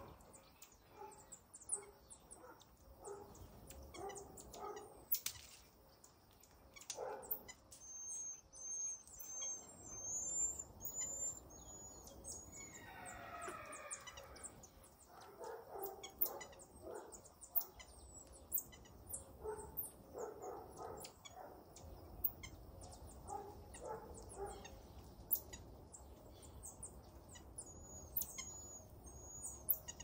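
Faint woodland ambience of scattered high-pitched chirps and bird calls. There are quick runs of short chirps, and a falling series of notes near the middle.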